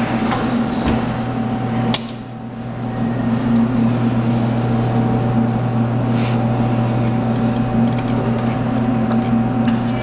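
Steady low electrical hum with a faint higher tone over it. It dips briefly about two seconds in, and there are a few faint clicks.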